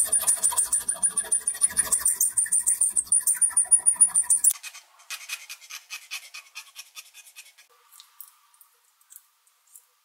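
Victorinox Swiss Army knife's metal file rasping back and forth across a steel plate held in a vise, in quick even strokes, several a second. About four and a half seconds in it gives way to lighter, faster scraping that fades out, with a few faint ticks near the end.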